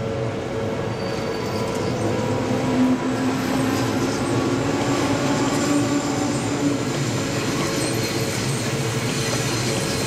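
Odakyu 1000-series electric commuter train passing close by over a level crossing, with steady wheel-on-rail rumble and clatter. A motor whine rises slightly in pitch through the middle, and thin wheel squeals sound over it.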